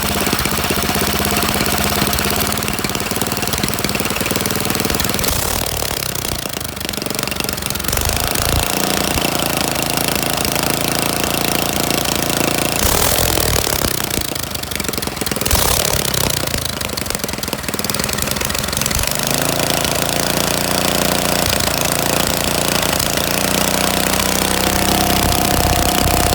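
Small go-kart engine running, its speed shifting up and down a few times between steady stretches.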